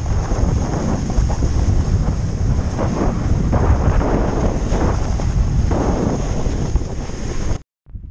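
Wind buffeting the microphone as a snowboard runs fast down a groomed slope, with surges of scraping hiss from the board's edge on the snow. It cuts off abruptly near the end, leaving a quieter wind.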